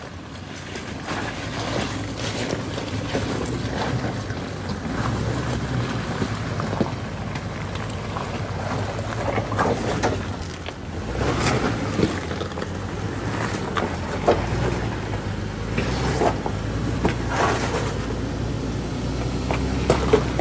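Toyota 4Runner's engine running low and steady as it crawls an off-road trail, with scattered knocks and clunks throughout.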